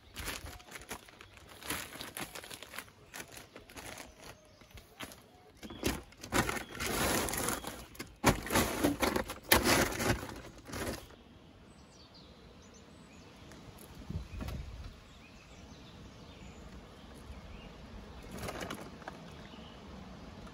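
Large plastic sheet crinkling and rustling as it is spread and pressed down over a roof of logs, with knocks and shifting of the logs under a person's weight; the crinkling is loudest between about six and eleven seconds. It then stops suddenly, leaving a quiet outdoor background with faint bird chirps.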